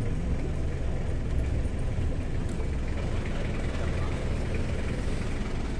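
Wind buffeting the microphone: a steady low rumble with hiss over it.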